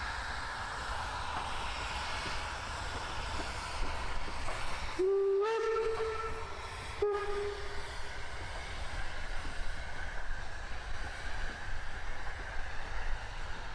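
A BR 50 2-10-0 steam locomotive passes with its coaches, its train rumbling steadily. About five seconds in, its steam whistle gives one blast of roughly three seconds. The blast slides up in pitch as it opens, holds, then breaks briefly and fades away.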